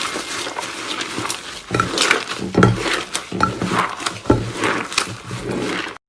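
Slime being squeezed and kneaded by hand, with a quick, irregular run of wet squelches and sharp air-bubble pops and clicks. The sound cuts off abruptly just before the end.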